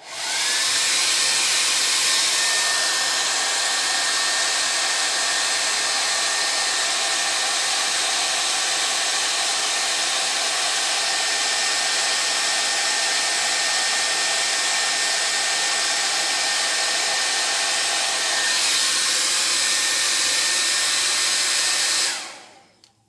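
Handheld hair dryer running, a steady rush of blown air with a thin high whine that rises as the motor spins up and then holds. The sound changes a little about three-quarters of the way through, and it switches off about a second before the end.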